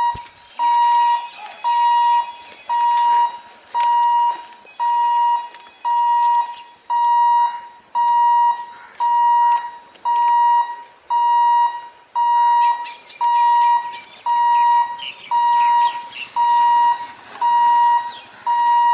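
Electronic level-crossing warning alarm beeping steadily: one long, high beep about once a second, warning of an approaching train.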